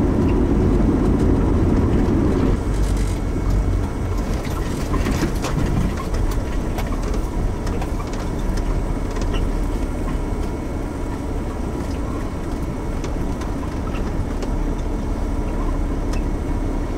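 Vehicle running noise heard from inside the cabin: a steady low engine and tyre rumble that drops in level about two and a half seconds in, then carries on more quietly with scattered light clicks and knocks as the vehicle drives along a dirt track.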